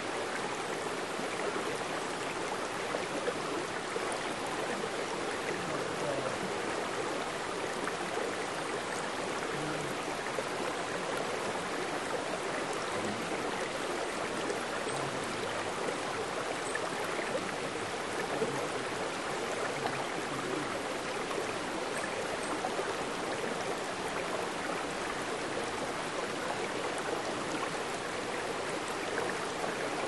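Mountain stream running over boulders, with a small cascade pouring into a pool: a steady sound of flowing water.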